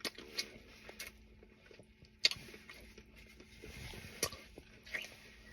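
A person eating barbecued ribs: faint chewing and mouth noises with scattered short clicks and handling sounds, the sharpest click about two seconds in.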